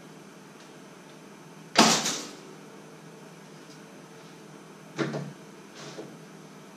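Hard kitchen items knocking on a countertop: a loud sharp clack with a quick second knock about two seconds in, and a softer clack about three seconds later.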